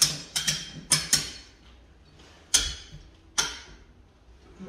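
Ratcheting floor jack clicking as it is worked, pressing vinyl/laminate planks together to close the gaps between them. A handful of sharp metallic clicks, unevenly spaced: several close together in the first second or so, then two more after longer pauses.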